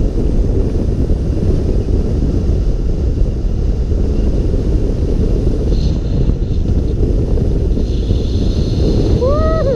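Wind buffeting the microphone, a loud steady low rumble. Near the end comes one short pitched call that rises and then falls.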